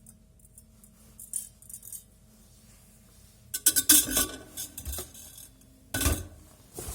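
Immersion blender accessories being handled and set down: a few light ticks, then a run of loud clattering knocks about halfway through and one more sharp knock near the end.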